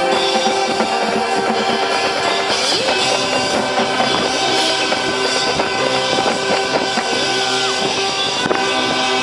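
High school marching band playing long held chords over drum hits, changing chord about three seconds in.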